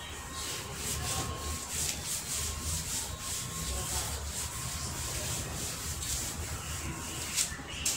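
Cloth duster wiping a chalkboard: a run of repeated rubbing strokes as chalk writing is erased.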